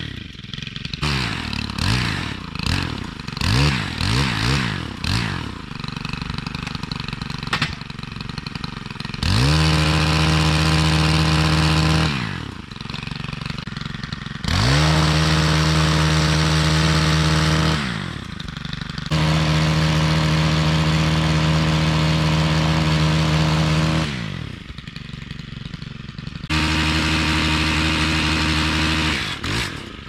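Gas-powered pole saw's small two-stroke engine: blipped up and down a few times, then held at full throttle in four long stretches of several seconds each while cutting overhead branches, dropping back to idle between cuts.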